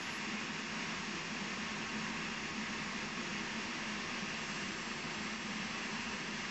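Electric welding arc burning steadily on steel tubing: an even hiss with a faint low hum underneath.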